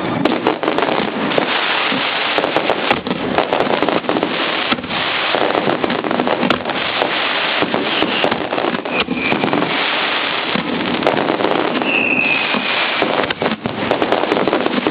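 Fireworks display going off densely: a continuous run of crackling bursts and bangs, with a short falling whistle about eight seconds in and another about twelve seconds in.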